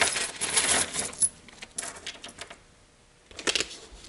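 Small metal hardware (T-nuts, washers and bolts) clinking and jingling as it is tipped out of a plastic bag onto a desk, a dense run of clicks over the first second or so that thins out by about two and a half seconds. A brief scuffing noise about three and a half seconds in.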